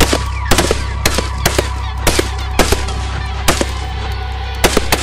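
Irregular gunfire from several shooters on a firing range: about a dozen sharp shots in five seconds, some in quick pairs. Underneath runs a steady droning tone.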